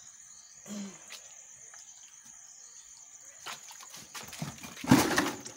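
Water splashing and dripping as a large catfish is lifted by hand out of a tub of water. A louder splash and slosh comes about five seconds in.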